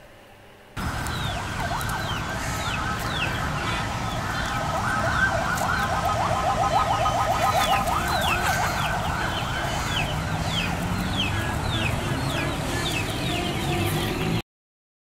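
Chickens and other birds calling: many short falling chirps and quick repeated calls over a low outdoor rumble. The sound starts abruptly about a second in and cuts off suddenly near the end.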